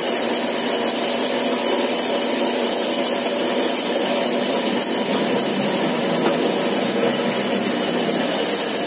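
Power tool working on exhaust piping, running steadily: an even, unbroken hiss with little low end.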